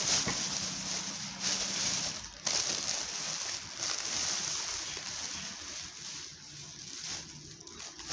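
Rustling of shiny plastic gift wrap being handled: a continuous hissy rustle with a few short breaks.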